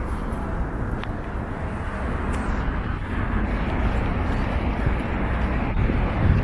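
Steady low rumble of city street traffic, growing slightly louder toward the end.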